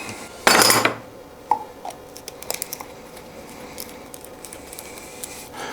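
A short, loud, noisy rasp about half a second in, followed by faint scattered clicks and rustles of hands handling the taped glue-up.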